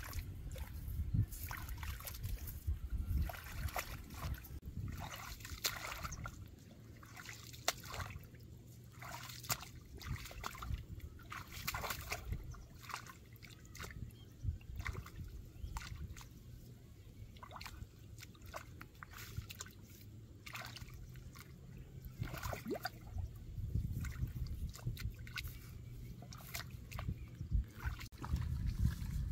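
Hands working in shallow, muddy paddy water: irregular sloshing, small splashes and trickling as the water is stirred and lifted.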